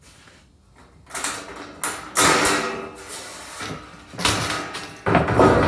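A stainless steel sheet-metal panel being handled, with scraping and clattering metal on metal. A knock near the end sets the sheet ringing.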